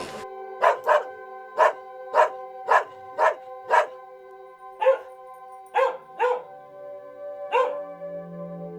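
About eleven short, sharp barking calls from an animal, in irregular pairs and singles, over background music with steady held tones.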